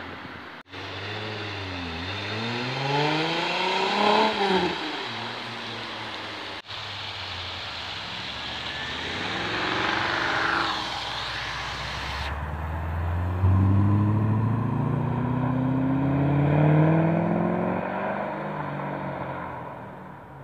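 Sports car engines revving and accelerating away on a wet road, pitch climbing through each gear, with tyre hiss on the wet tarmac. One car passes close about halfway through, and a long rising acceleration runs through the second half. The clips are joined by abrupt cuts.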